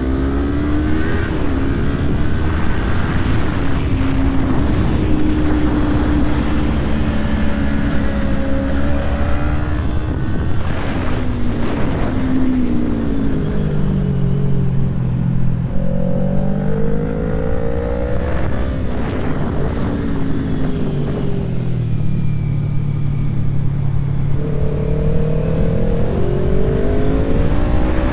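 Motorcycle engine under way, its revs rising and falling as it rides, with climbs in pitch about halfway through and again near the end, over steady wind rush.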